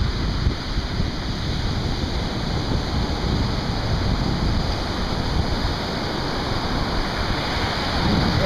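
Surf breaking and washing up the beach in a steady rush, mixed with wind buffeting the microphone.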